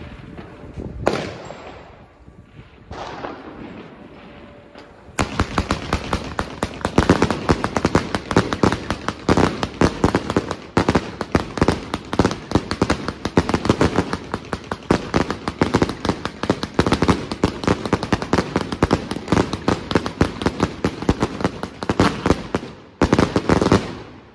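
Kometa P7864 100-shot 1.2-inch firework cake firing: two single bursts in the first few seconds, then from about five seconds in a rapid, unbroken run of shots and crackling that stops suddenly near the end.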